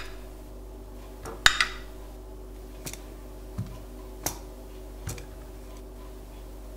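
Metal kitchen tongs clicking and tapping against a ceramic plate as roast potato wedges are set down: a handful of sharp separate clicks, the loudest about a second and a half in, over a faint steady hum.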